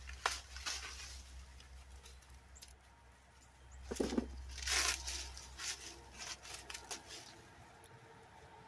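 Dry field corn stalks, leaves and husks rustling and crackling as ears are picked by hand, with scattered sharp snaps. The loudest stretch comes about four to five seconds in.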